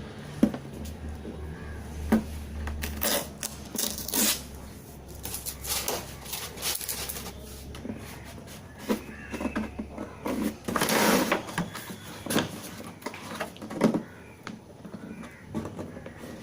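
Hands working at a packaging seal on the side of a box: scattered clicks, taps and scraping, with a longer scratchy rub about eleven seconds in.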